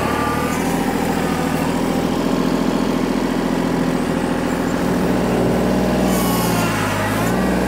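Kubota L2501 compact tractor's three-cylinder diesel engine running steadily while the tractor noses its front loader up to a small leaning tree to push it over. The engine note dips briefly near the end as it takes up load.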